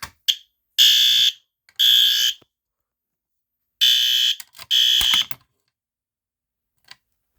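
System Sensor fire alarm horn strobe, set off from a pulled pull station, sounding very loudly in half-second horn blasts: two pairs about two seconds apart, then it stops about five seconds in.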